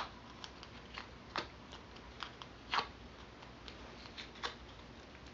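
Faint rustling and scraping of a punched cardstock flower as a bone folder is pressed hard across its petals to break down the paper fibres, with scattered light clicks, three of them louder.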